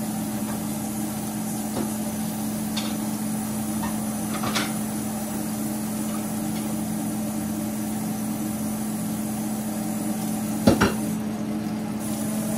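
Occasional knocks and clatter of cookware and kitchen utensils, the loudest a sharp knock near the end, over a steady low hum.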